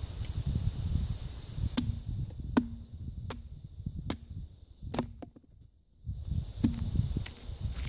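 Wooden baton (a length of log) knocking on the spine of a Gerber Bear Grylls Ultimate fixed-blade survival knife, driving the blade down through a stick standing on a stump. About seven sharp wooden knocks, roughly one a second, each with a short low ring.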